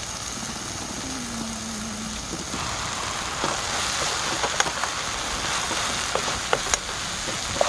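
Food sizzling and frying on a hot camping grill plate, an even hiss with scattered small pops and crackles that grows louder about two and a half seconds in.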